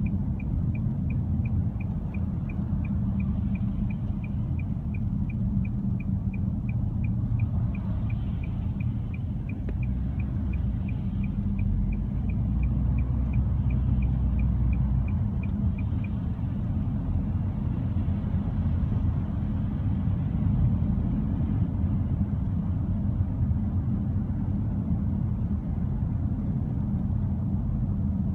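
Inside a moving car: a steady low rumble of road and engine noise. A light, regular ticking, about two to three a second, runs along with it and stops a little past halfway.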